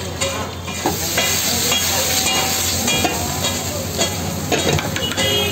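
Pizza dosa sizzling on a hot dosa griddle, with frequent clicks and scrapes of metal utensils.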